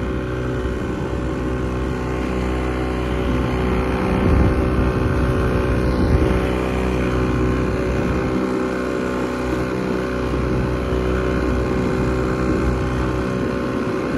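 Boat's outboard motor running steadily under way at a constant speed.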